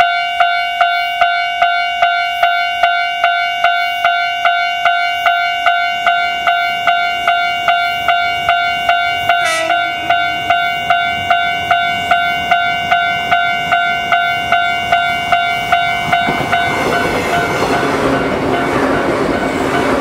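Level-crossing alarm ringing in fast, even pitched strikes, about two and a half a second, a pace and tone the uploader found unusual, with a brief sharp sound near the middle. About sixteen seconds in, a JR 185-series electric train passes over the crossing and its running noise and wheel clatter take over.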